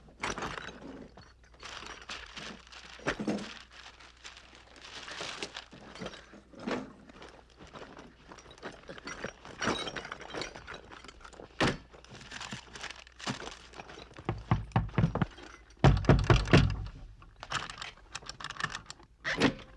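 Clumsy clattering and knocking of tools and objects being handled and bumped about in a small room, a run of irregular knocks, scrapes and rattles. About three-quarters of the way through comes a cluster of heavy thuds, followed by a few more sharp knocks near the end.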